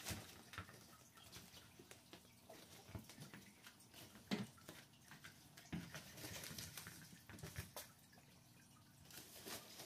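Faint, scattered crinkles and taps of kittens pawing at and scrambling through a crinkly fabric cat tunnel, with a sharper tap about four seconds in and a run of small crackles a little after six seconds.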